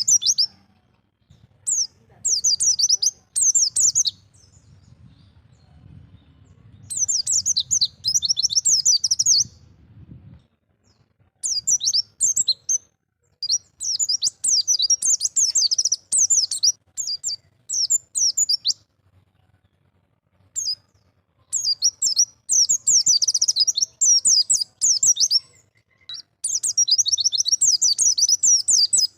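White-eye (pleci, Zosterops) singing rapid, high twittering phrases in bursts of one to three seconds, separated by short pauses.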